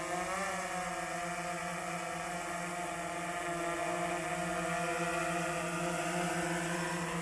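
DJI Phantom 3 Standard quadcopter's propellers and motors hovering close by, a steady pitched hum whose pitch lifts briefly about half a second in.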